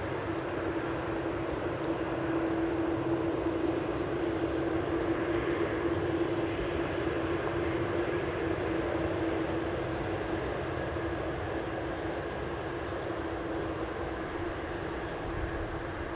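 Boeing 747-8F freighter's four GEnx jet engines running: a steady rushing roar with a strong low whine, swelling a little and then easing off slowly.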